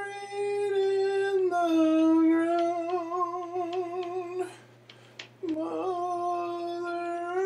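A voice humming or crooning long held notes: one steady note, then a slightly lower note with a wavering vibrato. It breaks off for about a second and swoops up into another long note near the end.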